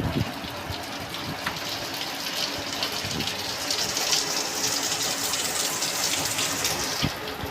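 Rain falling steadily, many drops ticking on hard surfaces; the hiss swells heavier about two seconds in and eases off shortly before the end.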